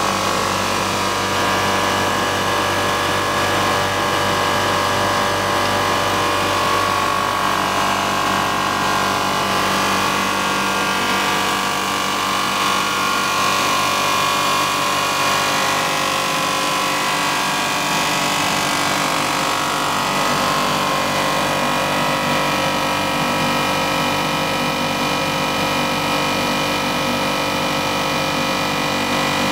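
Blown film extrusion line running: a steady machine hum with several held whining tones from its drive motor and gearbox.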